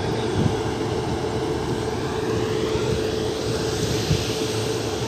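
Steady mechanical drone with a constant hum from the diesel generator sets of an LHB luggage-brake-and-generator power car running beside a standing train.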